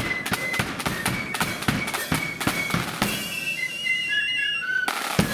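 Blood-and-thunder flute band playing a march: flutes carry the melody over hard, rapid snare and bass drum beats. The drums stop for about two seconds past the middle, leaving the flutes alone, then crash back in near the end.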